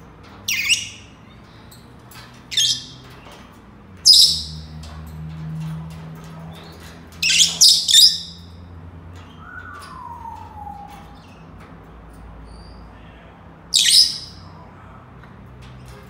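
Senegal parrots giving short, shrill calls: single calls spaced a couple of seconds apart, a quick run of three about seven seconds in, and one more near the end. Between them comes a soft whistle that falls in pitch.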